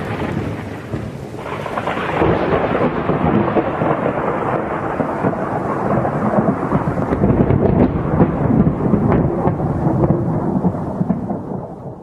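Thunder rumbling and rolling over steady rain, swelling and easing in waves.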